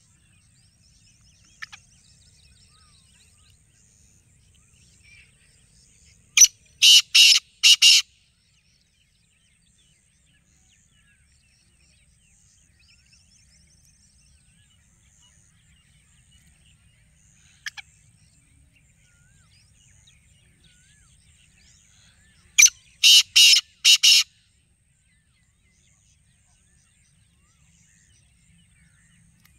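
Black francolin calling twice, about sixteen seconds apart: each call a loud, harsh phrase of four quick notes lasting under two seconds. Faint chirping of other birds in between.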